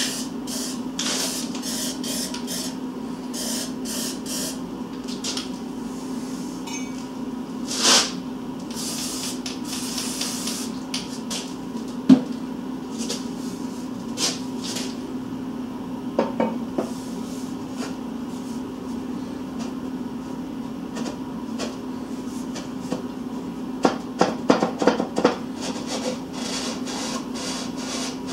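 Steel parts of a home-built radial drill knocking and clinking as the column tube is handled and set into its base, with one sharp knock about twelve seconds in and a quick run of clinks near the end. A steady hum and a few short hisses lie underneath.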